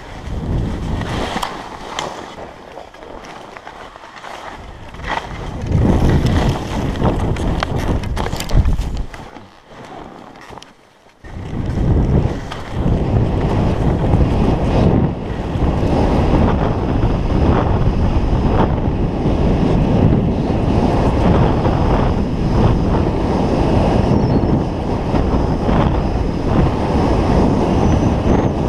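Skis scraping and chattering over snow under wind buffeting the action camera's microphone. After a sudden quiet dip about ten seconds in, a steady loud wind rush on the microphone takes over.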